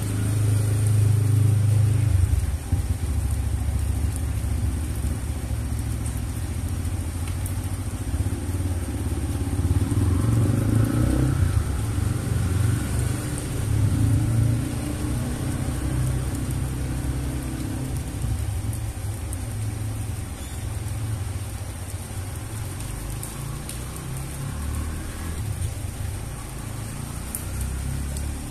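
Heavy rain falling on wet concrete, a steady hiss under a loud, uneven low rumble. About ten seconds in, a motor rises and falls in pitch for a few seconds, like a vehicle passing.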